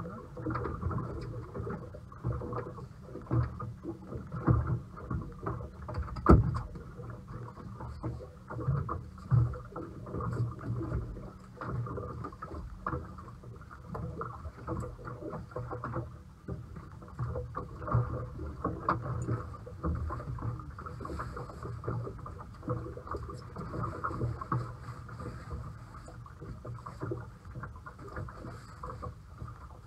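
Sounds of a small fishing boat on the water: irregular knocks and sloshing, with one sharp knock about six seconds in.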